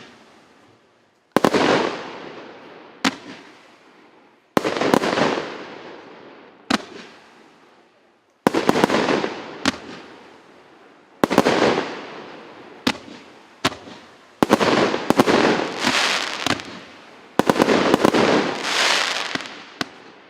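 Consumer firework battery (a 96-shot, 1.25-inch cake) firing. Each shot is a sharp bang followed by a fading noisy tail, a second or two apart, and they come thicker and overlap toward the end.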